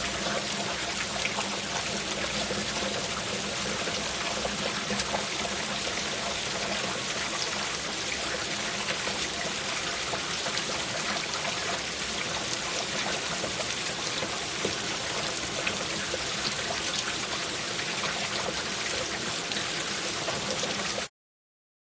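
Rain falling steadily, an even hiss of water with scattered faint drop ticks; it cuts off suddenly near the end.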